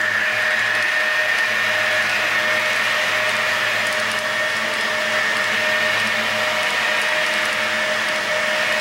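HO scale model container train running by: a steady mechanical whir with a constant high whine from the model locomotives and the cars rolling on the track.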